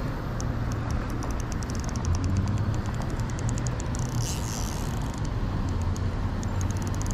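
Shimano Aldebaran BFS baitcasting reel clicking rapidly and faintly while a hooked channel catfish is fought on 4-pound line, over a steady low background rumble.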